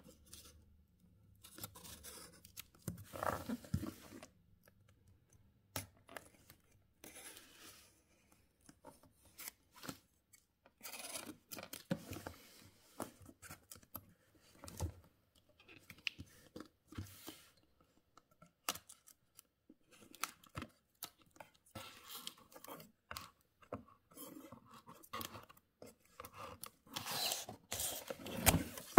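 A small hand-held cutter slicing clear packing tape along the edges of a cardboard box, with tape tearing, in short irregular scratchy strokes; the longest, loudest stroke comes near the end.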